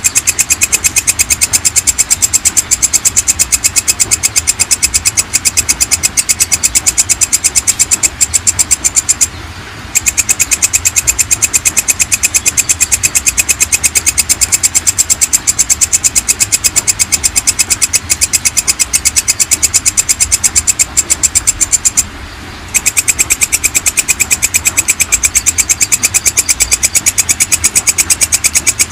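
Belalang kecek (walang kecek) insect calling: a loud, fast, even train of high chirping pulses, broken by two brief pauses about nine and twenty-two seconds in.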